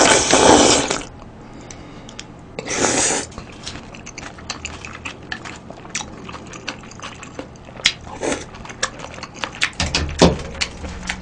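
Loud slurping of noodle soup broth drunk straight from the bowl, once at the start and again about three seconds in, followed by chewing and many small clicks of chopsticks against the bowl, and a knock as the bowl is set down on the table about ten seconds in.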